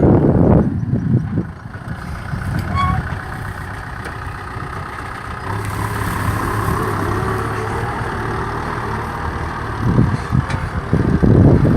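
Kubota M6040 SU farm tractor's diesel engine running steadily under load. Low, ragged gusts of wind buffet the microphone near the start and again near the end.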